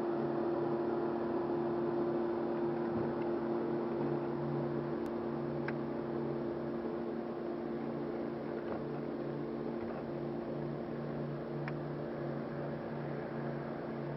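Bow-mounted electric trolling motor running with a steady hum, its lower tone cutting in and out irregularly. A few faint clicks.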